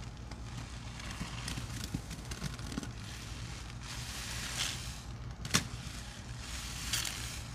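Thick soapy suds of a cleaning-product and baking-soda mix being worked by hand, crackling and squelching in swells. There is one sharp click a little past halfway.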